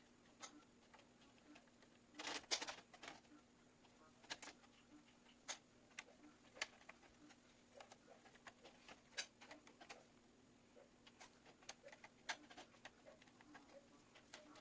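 Faint, scattered clicks and taps of PC parts and cables being handled, with a short cluster about two seconds in the loudest, over a steady low hum.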